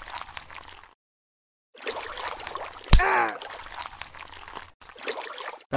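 Water trickling and sloshing, added as sound effects. About three seconds in comes one sharp click, followed by a short falling squeak.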